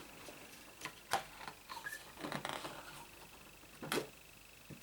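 Light handling of a stand-up paper calendar being turned over: a few soft taps and paper rustles, the clearest about a second in and near the end.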